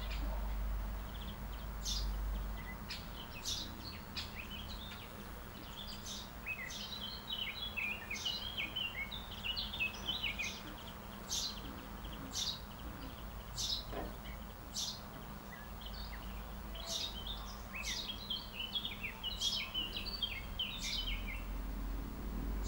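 Small songbirds calling: a string of sharp, high single notes every second or so, with two bursts of quick twittering song, over a steady low rumble.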